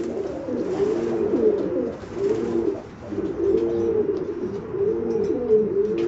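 Domestic pigeons cooing, several overlapping calls repeating steadily, each a short rise-and-fall coo.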